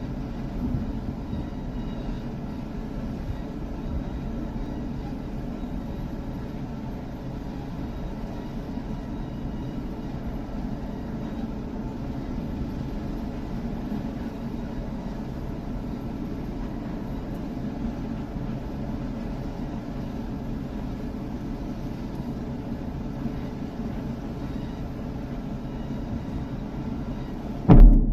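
Steady low outdoor rumble, then, about a second before the end, one sharp, loud blast: the explosive charges of the controlled demolition of the Key Bridge wreckage going off.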